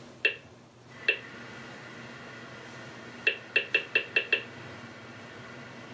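Short, identical clicks, one for each press of a Samsung smart TV remote's arrow buttons as the cursor steps letter by letter across the on-screen keyboard. There are two single clicks, then about three seconds in a quick run of six, about five a second.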